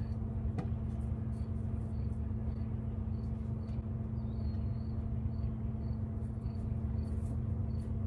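A steady engine hum, low and unchanging, with a faint insect chirp repeating about twice a second. A single sharp click sounds about half a second in.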